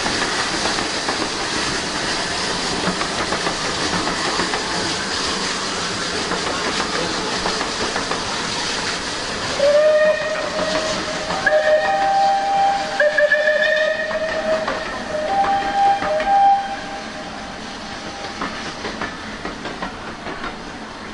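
A steam-hauled passenger train running by with a steady hiss and rumble of steam and wheels. About ten seconds in, a steam locomotive whistle sounds in a run of several blasts at two different pitches over some seven seconds, then the train noise fades.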